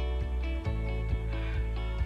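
Background music with sustained instrumental notes over a bass line and a steady beat, about two beats a second.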